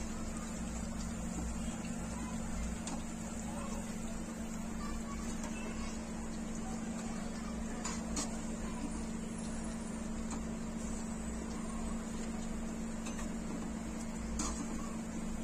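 A steady low mechanical hum with a faint hiss over it. A couple of faint clicks come about eight seconds in and again near the end.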